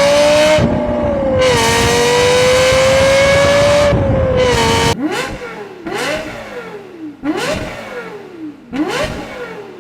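Lexus LFA's 4.8-litre V10 accelerating hard at high revs, its pitch climbing steadily and dipping twice at gear changes. From about five seconds in, four quick throttle blips follow, each rising sharply and falling away.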